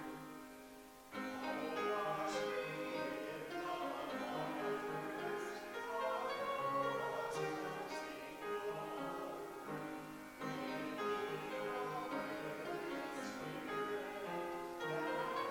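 Slow instrumental music on a keyboard with held chords, with a new phrase starting sharply about a second in and again near ten seconds.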